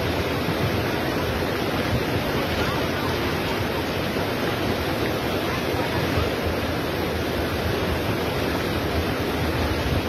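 Swollen, muddy river in flood rushing past: a steady, dense rush of water noise that never lets up.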